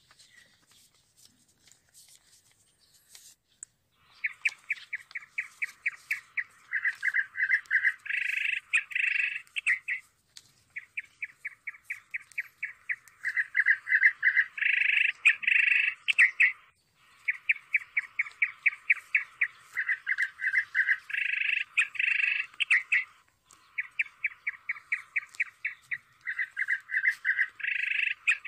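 Bird-like chirping that starts about four seconds in: quick runs of short chirps in phrases of about six seconds, each ending in a louder, denser stretch. The phrase repeats four times almost identically, with short breaks between.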